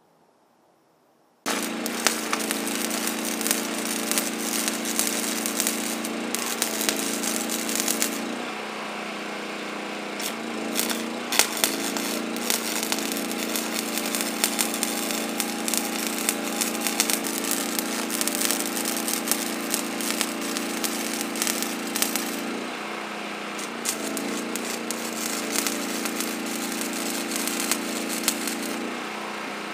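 Wire-feed welder arc welding steel, a steady sputtering crackle with a low hum beneath. It starts suddenly about a second and a half in and breaks off briefly twice between beads before striking again.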